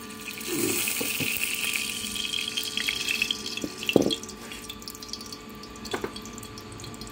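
Cooking oil hissing and sizzling as it hits a hot aluminium kadai, fading out after about three seconds. A single loud knock comes about four seconds in, with a couple of lighter clicks near the end.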